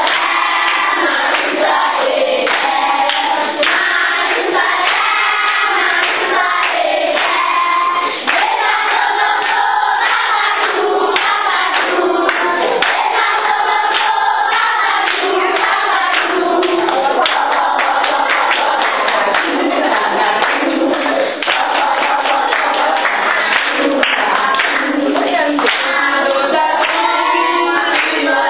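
A class of primary-school children singing together as a choir, with many sharp claps through the song.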